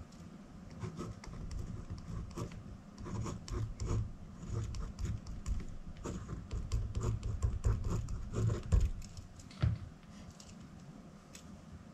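Pen scratching across notebook paper while writing a line of handwriting: a run of short, quick strokes that stops about ten seconds in as the pen is lifted.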